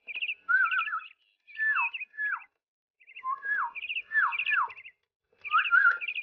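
A small caged songbird singing: four phrases of quick chirps and short whistles that slide downward, with brief pauses between them.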